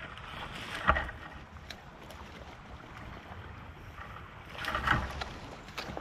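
Steady rush of river current over a rocky bed, with two louder water sloshes, about a second in and again near five seconds, as someone wades at the bank.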